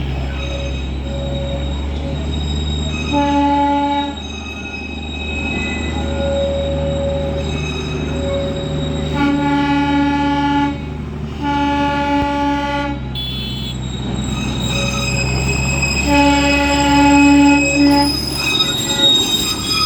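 Darjeeling Himalayan Railway toy train running with a steady low rumble, sounding its horn in four blasts of one to two seconds each: a short one about three seconds in, two longer ones close together around the middle, and a last long one near the end.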